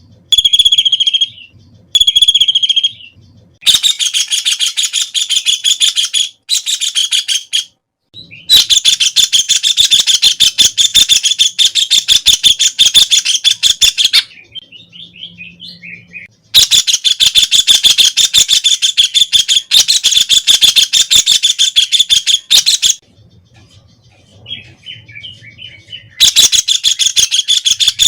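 White-throated kingfisher calling in long, fast, rattling trills several seconds each, with three short calls at the start. Brief pauses between the bouts hold quieter chattering.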